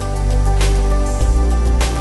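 Background music: sustained bass and held chords, with two soft percussive hits about a second apart.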